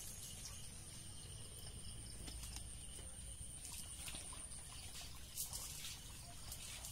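Faint outdoor background of a low steady rumble and a steady high-pitched whine, with a few brief soft rustles as a cast net is gathered and arranged by hand. The loudest rustle comes about five and a half seconds in.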